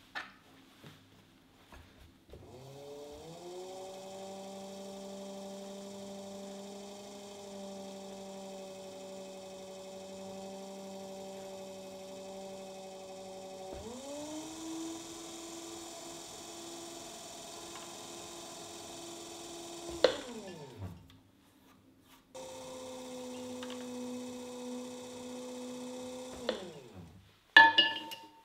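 Electric pottery wheel motor humming as the wheel head spins: it speeds up a couple of seconds in, runs steadily, steps up to a higher pitch about halfway, winds down and stops, then runs again briefly at a lower pitch. A few sharp knocks come near the end.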